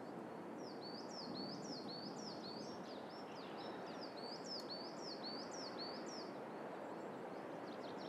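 A small bird repeating a fast series of high chirping notes, about three a second, over a steady hiss of woodland ambience; the series stops after about six seconds.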